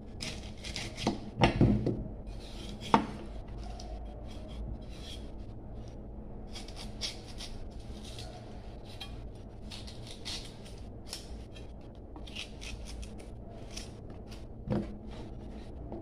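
Kitchen knife peeling the skin off a firm green vegetable in short scraping strokes, with a few knocks on a wooden chopping board, the loudest about a second and a half and three seconds in.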